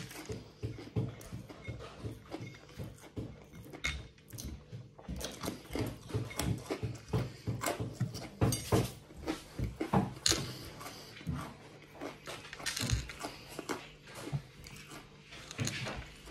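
Close chewing and crunching of crisp fried garlic pieces coated in super-hot pepper powder, wet mouth smacks in quick irregular strokes. Near the end a breath is blown out through pursed lips.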